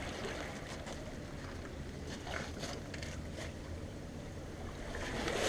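Sea surf washing over a pebble beach, with a low rumble of wind on the microphone; the wash swells louder near the end as the water comes up again.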